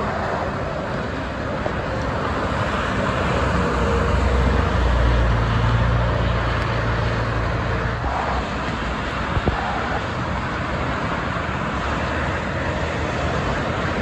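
Steady multi-lane expressway traffic heard from above: the continuous hiss of tyres and engines of passing cars. A deeper rumble swells for a few seconds about a third of the way in.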